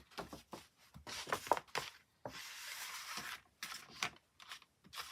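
Card and paper being handled and rubbed as a stamped card panel is pressed onto a black card backing: short rustles, then a longer sliding rub about two seconds in, and a few light taps near the end.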